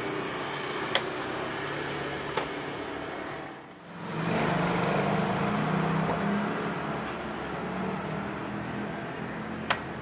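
Steady low hum of a running vehicle at a car door, with a few sharp clicks from the door handle and latch. The hum drops out briefly about four seconds in and returns louder.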